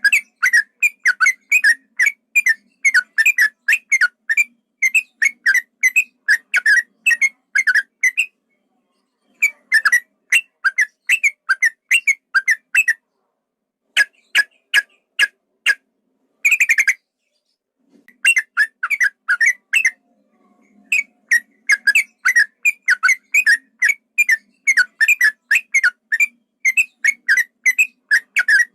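Yellow-vented bulbul (trucukan) singing a long, rapid song: runs of short whistled notes, about three to four a second, broken by several brief pauses.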